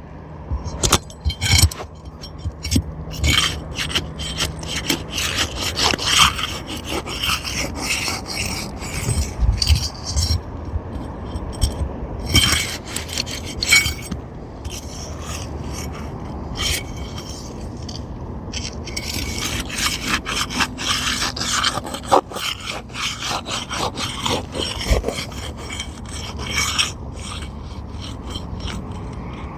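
Asphalt roof shingles being scraped and rubbed as they are lifted and worked loose to find and pop out the roofing nails beneath, in irregular scraping strokes with sharp clicks.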